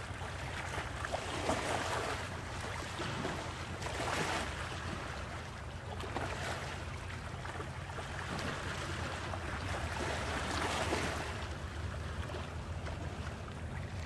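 Sea waves breaking and washing in, the surf swelling and falling back every two to three seconds over a steady low rumble.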